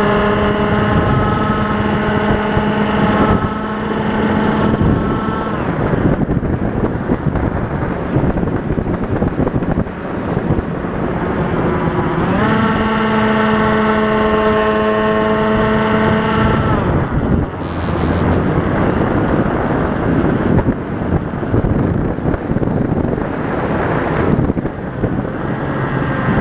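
RC plane's motor and propeller running in flight with wind rushing over the microphone. The motor hum's pitch steps up about twelve seconds in and drops away about four seconds later, leaving mostly wind noise.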